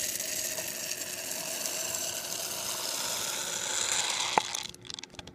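Aroma beads poured from a plastic cup back into their container in a steady, rattling stream, with a single sharp knock about four seconds in before the pour tails off.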